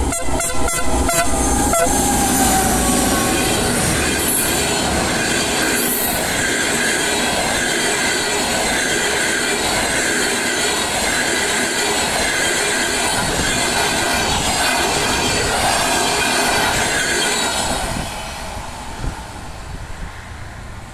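Diesel-hauled passenger train passing close by: sharp wheel clacks as the locomotive goes past in the first two seconds, then the steady rumble and rattle of the passenger coaches rolling by. The sound drops away about 18 seconds in as the last coach passes and the train moves off.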